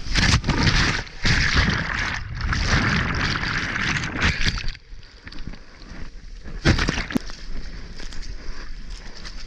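A breaking shorebreak wave rushing over a mouth-mounted GoPro: a loud rush of whitewater for about four and a half seconds, then quieter sloshing and splashing with one sharp splash about two-thirds of the way through.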